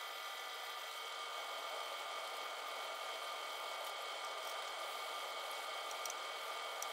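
A steady hiss with a faint even hum, like a fan running, with a few faint clicks near the end.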